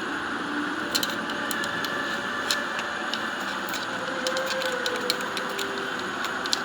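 Hero Honda Splendor motorcycle engine running steadily, with irregular sharp ticks or clicks over it: the abnormal noise blamed on the magneto (magnetic) coil.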